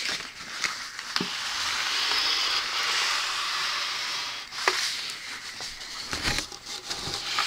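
Handling noises as a wooden mantel clock's back door is shut and the clock is turned around: a few sharp clicks and knocks, with a steady rubbing hiss lasting several seconds.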